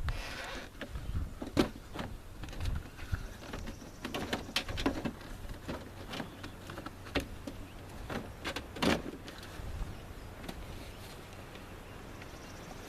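Irregular clicks, knocks and rattles of hands working on a pickup truck's door and its trim panel, with two sharper knocks, about a second and a half in and near nine seconds.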